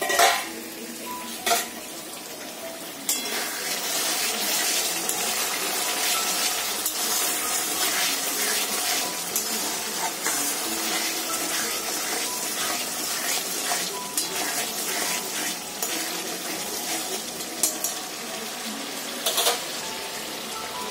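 A steel lid is lifted off a steel kadai with a metal clank. A few seconds later a fish curry sizzles and bubbles steadily in the pan, while a metal spatula stirs it with small scraping clicks against the steel. There are a couple more metal knocks near the end.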